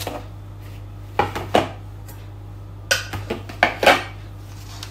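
Kitchenware being handled: a mixing bowl and bakeware knocking and clattering on the counter, with two short knocks a little after a second in and a quick cluster of four more in the second half.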